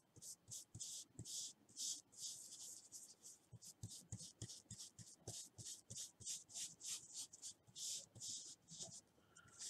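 Ink blending brush rubbed over card stock in quick, soft strokes, two or three a second, working brown ink into the background.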